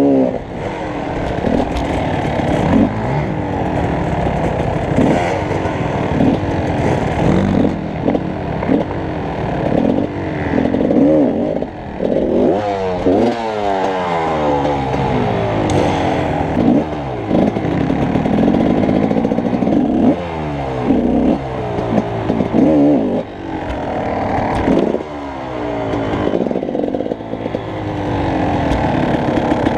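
Dirt bike engine heard close up from on the bike, revving up and dropping back again and again as it is ridden, its pitch climbing in repeated sweeps.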